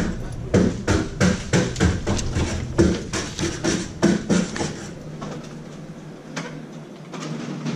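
Coins being handed over and handled at a shop checkout counter: a quick run of sharp clicks and taps, about three a second, that thins out to a few scattered ones after about four and a half seconds.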